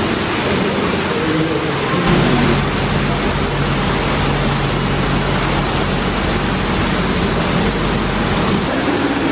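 Black Maserati GranTurismo's V8 idling steadily as a low hum from about two seconds in until near the end, under a loud, steady rushing hiss.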